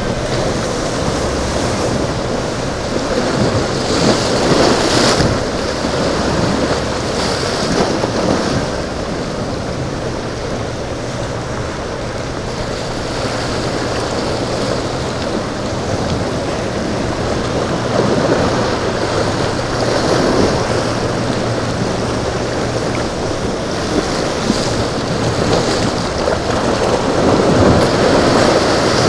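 Rough surf surging and breaking repeatedly, with wind buffeting the microphone, over a steady low drone of boat engines.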